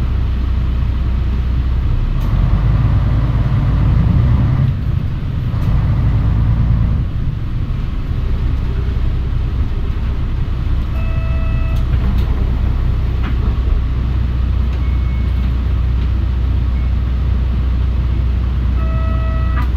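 Mitsubishi Fuso Aerostar city bus under way, heard from inside: a low engine drone that swells from about two to seven seconds in as the bus pulls, then eases off. A short electronic beep sounds twice, about eleven seconds in and again near the end.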